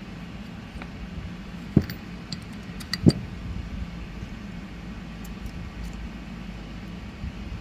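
Two sharp knocks, the second the louder, with a few light clicks between them, from metal parts and tools being handled during a motorcycle rocker box rebuild. A steady low hum runs underneath.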